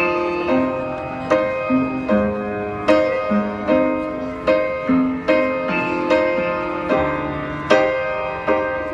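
Music led by a piano, with chords struck at a slow, even pulse a little under a second apart.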